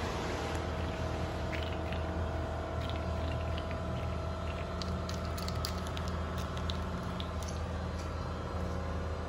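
Scattered light ticks of a small plastic bottle being batted and skidding across a concrete floor by a kitten's paws, over a steady low mechanical hum.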